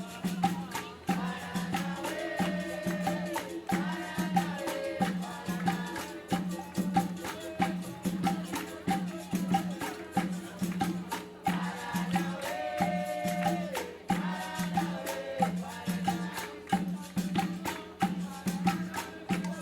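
Live capoeira music: rattle and hand-drum percussion keeping a steady, even rhythm over a pulsing low tone, with a sung line coming in twice.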